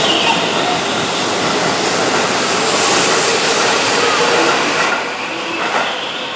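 Keihan Electric Railway commuter train running along a station platform: a steady, loud rushing noise that eases off about five seconds in as the last car clears.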